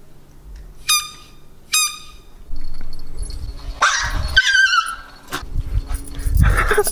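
The squeaker inside a Kong tennis ball is squeezed twice, giving two short, high squeaks. About four seconds in, a dog answers with an excited, wavering whine-yelp.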